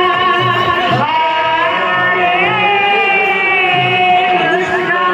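Devotional kirtan singing amplified through microphones: long, wavering sung notes that glide between pitches, over a low, regular beat.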